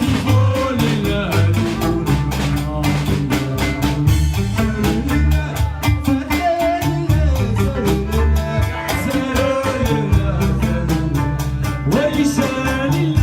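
Gnawa music: singing over a deep, repeating plucked bass line, with a fast, steady metallic clatter keeping the beat.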